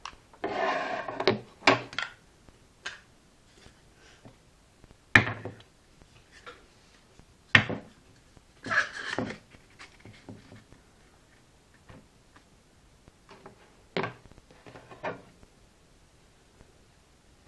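Objects being handled at close range: bursts of rubbing or scraping about half a second in and again near nine seconds, with sharp knocks and clicks in between.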